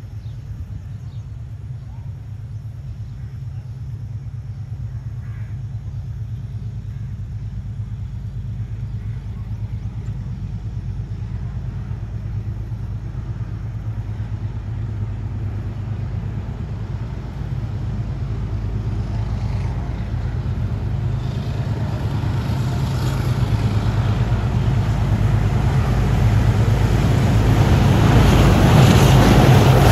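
Diesel locomotive of an express passenger train approaching: a steady low engine drone that grows gradually louder, spreading into a broader rushing noise near the end as the train draws close.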